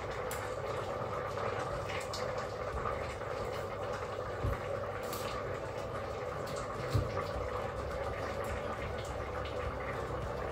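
Broth bubbling steadily at a simmer in a Crockpot Express multicooker's pot while ramen noodles cook, with a couple of soft knocks about halfway through.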